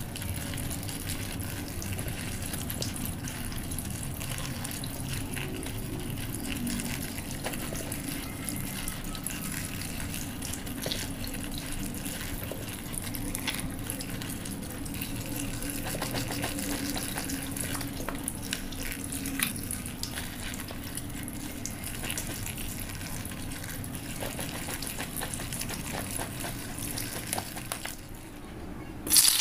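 Tap water running and splashing onto cubed eggplant in a plastic colander while hands turn the pieces to rinse them; a steady, even rush of water.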